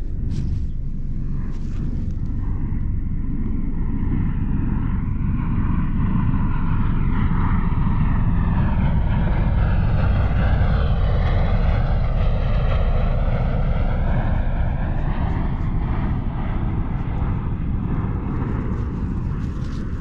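An airplane flying low overhead: a loud, continuous rumble that swells to its peak about halfway through and then slowly fades, with a wavering whoosh above it.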